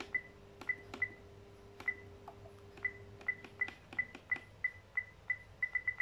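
iRobot Roomba 805 control panel beeping as its clock-setting buttons are pressed: a short high beep with a click for each press, spaced unevenly at first, then coming quickly, about four or five a second, near the end as a button is pressed in quick succession.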